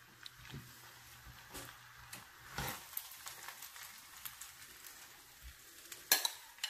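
A metal spoon stirring and scraping fried rice and shrimp in a frying pan, with faint sizzling, then a couple of sharp clacks of metal on the pan about six seconds in.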